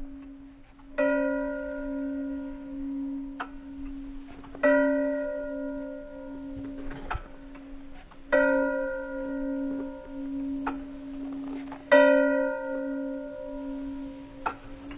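An arriving commuter train's warning bell ringing. A loud strike comes about every three and a half seconds, and its tone rings on steadily between strikes.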